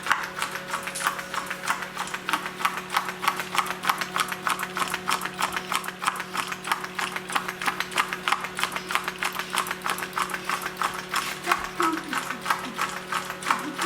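Homemade wooden walking-beam Stirling engine with a balloon diaphragm, running on candle heat: its beam and linkage clack in a steady, even rhythm of several clicks a second, over a steady low hum. The engine is working properly.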